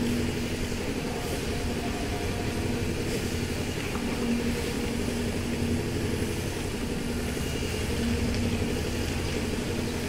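Concrete mixer's engine running with a steady, even drone throughout a roof-slab concrete pour.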